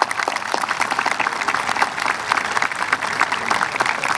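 Crowd applauding outdoors, many hands clapping steadily, as board members stand to be recognized.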